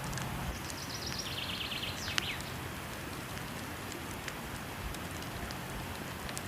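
Wood fire crackling with scattered sharp pops over the steady rush of falling water. From about half a second to two seconds in, a high rapid trill steps down in pitch.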